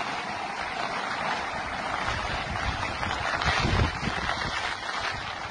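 Steady rush of fast floodwater and storm wind, with wind buffeting the phone's microphone in low gusts, the strongest a little under four seconds in.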